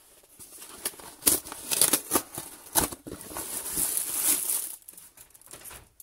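Packaging crinkling and rustling as a darkroom changing bag in a clear plastic wrapper is handled out of its paper mailer, with several sharp crackles in the first three seconds, then a steadier rustle that fades near the end.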